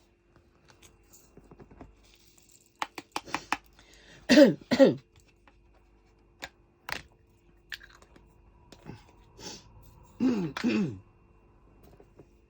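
A woman coughing in two short, loud pairs, about four and ten seconds in, with a muttered "dear" at the first pair; she is getting over an illness. Light clicks of diamond-painting tools come just before the first coughs.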